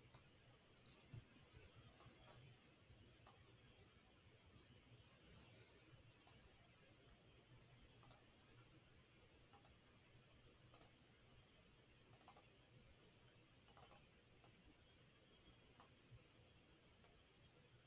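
Computer mouse buttons clicking: a scattered series of sharp clicks, some in quick pairs or triples, with gaps of one to three seconds between them.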